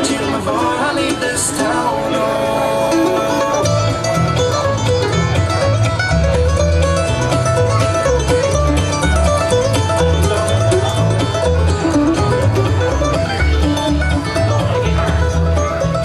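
Live folk band playing an instrumental passage on guitars and other plucked strings, with a bass line coming in about four seconds in.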